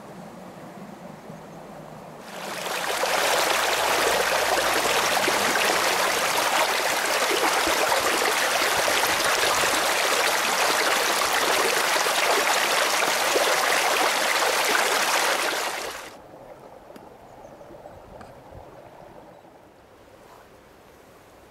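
A small stream of water rushing and splashing down a narrow rock-lined channel: a steady, loud rush that comes in about two seconds in and cuts off abruptly about three-quarters of the way through. Faint outdoor ambience before and after it.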